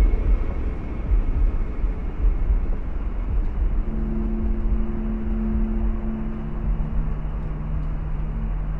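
Dark ambient sound-design drone: a heavy low rumble with a haze of noise, joined about four seconds in by steady low held tones.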